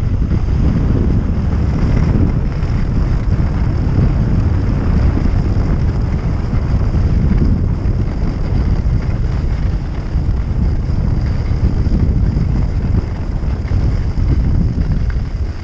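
Wind buffeting a skier's camera microphone at speed, a steady low rumble, mixed with the skis running over groomed snow.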